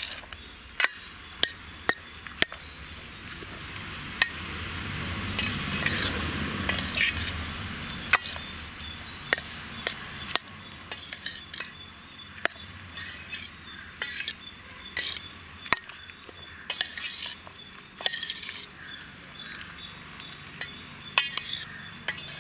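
A steel spoon mixing cooked lemon rice in a stainless steel pot: sharp clinks of the spoon against the pot, roughly one a second, over the soft scraping and rustling of the rice, which swells for a few seconds about a quarter of the way in.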